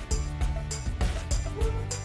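Background music with a steady beat, low sustained notes under regular percussive hits.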